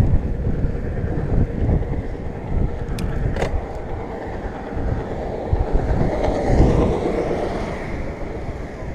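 Wind rumbling on the microphone of a handlebar-mounted camera on a moving bicycle, mixed with road noise. Two sharp clicks come about three seconds in, and a swell of broader noise rises and fades around six to seven seconds in.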